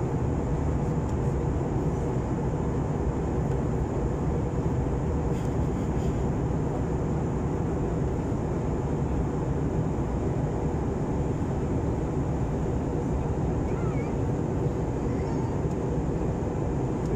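Steady cabin noise of an airliner in flight: engine and rushing-air noise heard from inside the passenger cabin, a low, even rush with no change in level.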